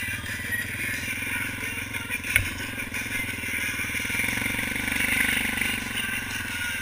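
Single-cylinder ATV engine running steadily at trail speed, with one sharp knock about two and a half seconds in.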